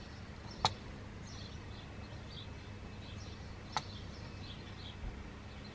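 Two short, sharp clicks of fingers and plastic as the rubber seal is pressed by hand into the back housing of a TomTom Rider 400 sat nav, one about a second in and one near four seconds. Faint bird chirps and a low steady hum sit behind.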